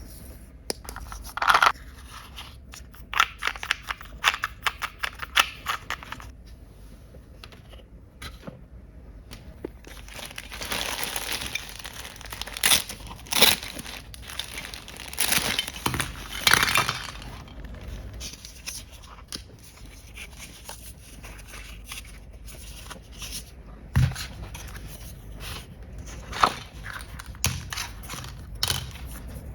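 Plastic packaging being crinkled and torn by hand, with sharp clicks and taps of small plastic toy pieces. The crinkling is densest in the middle.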